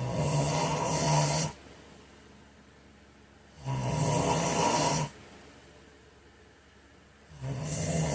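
A man snoring in his sleep. There are three loud snores, each about a second and a half long and roughly every three and a half to four seconds, with the third starting near the end.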